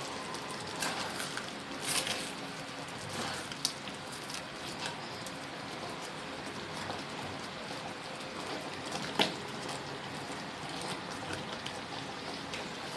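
Creamy chicken sauce simmering in a pan with a steady bubbling sizzle, and a few sharp clicks, the loudest about nine seconds in.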